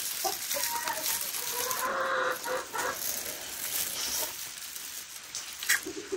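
Chickens clucking, a string of short calls, with a few sharp clicks near the end.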